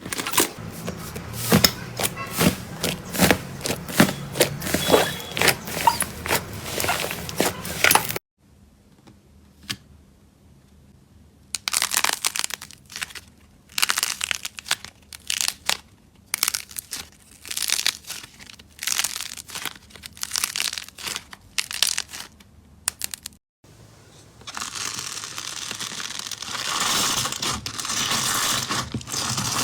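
Slime being squeezed and poked by hand, with dense crackling and popping clicks. After a cut about eight seconds in, it comes in short crunchy bursts a second or two apart. Near the end it turns to a steady, crisp crackling.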